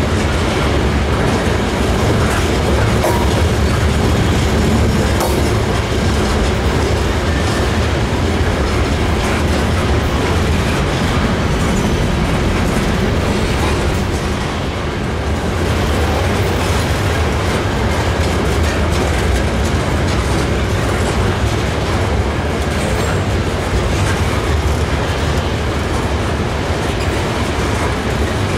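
A freight train of hopper cars rolling past, its wheels on the rails making a steady, loud, low noise.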